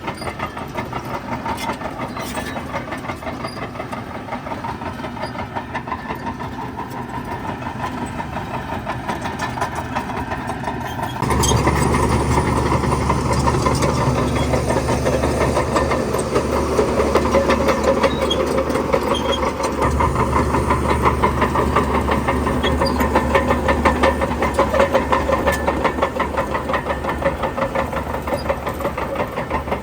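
Heavy diesel construction machinery running steadily; about a third of the way in the engine suddenly gets louder and deeper and stays that way.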